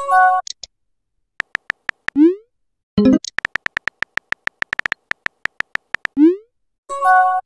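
Texting-app sound effects: two runs of rapid keyboard tap clicks as a message is typed, each followed by a quick rising swoosh as it is sent. A short electronic message chime sounds at the start and again near the end.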